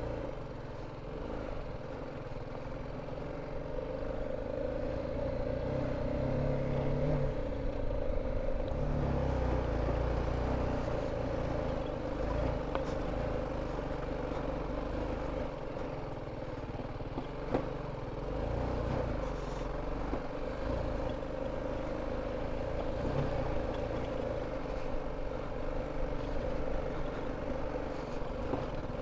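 BMW G 310 GS single-cylinder motorcycle engine running steadily at low speed on a stony off-road track, with some clatter, and a single sharp knock about seventeen seconds in.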